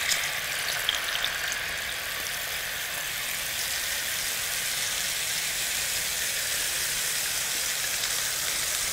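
Ginger paste, blended with water, sizzling steadily as it fries in hot oil in a frying pan, with a few light clicks in the first second and a half.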